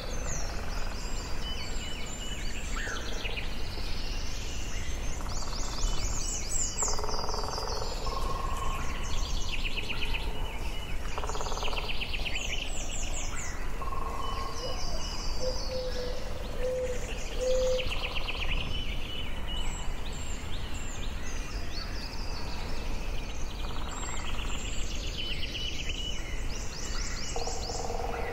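Forest ambience: songbirds singing repeated high trilled phrases, one after another, over a steady low rumble and hiss. About halfway through, a short run of four lower-pitched notes sounds.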